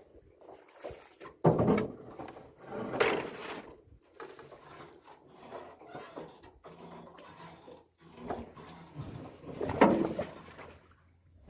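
Irregular knocks, scrapes and rattles from a fish trap being hauled and handled in a small boat. The loudest come about one and a half, three and ten seconds in.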